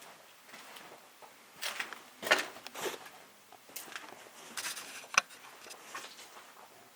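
Footsteps scuffing and crunching on a debris-strewn floor at an uneven pace, with a sharp click about five seconds in.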